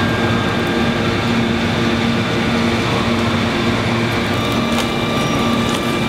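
Plywood mill machinery running steadily, with wood veneer handled on a conveyor line: a constant industrial hum carrying several steady tones, with a couple of light clicks about five seconds in.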